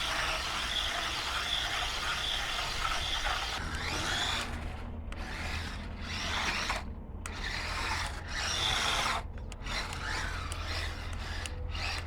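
Electric motor of a DEERC 9310 1:18-scale RC truck whining as it drives forward and back over rough ground, pitch rising and falling with the throttle, cutting out briefly about three times.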